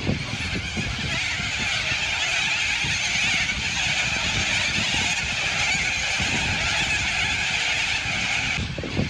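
Dense, unbroken chorus of screeching calls from a huge flock of flying animals overhead, with a low, uneven rumble underneath.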